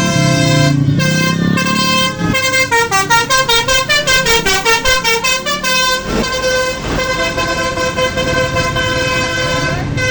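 Basuri tour bus's telolet horn playing: a quick run of short notes that step down and then back up in pitch, then a steady held chord of several tones.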